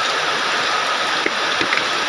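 Heavy rain pouring steadily, a dense even hiss, with a few louder individual drops striking after about a second.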